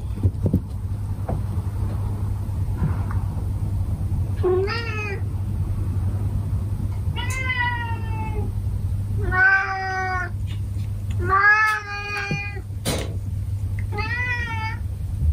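Domestic cats meowing for breakfast at a closed door: five separate meows of about a second each, a few seconds apart, over a steady low hum. A sharp click near the end.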